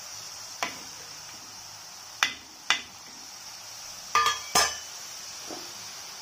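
Murukku deep-frying in hot groundnut oil with a steady sizzle. A metal utensil clinks sharply against the pan several times as the pieces are turned.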